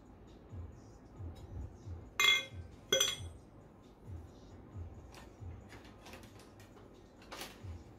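Stainless steel tumbler clinking twice with a short ring, about two seconds in and again a second later, then a softer click near the end. Background music with a soft steady beat runs underneath.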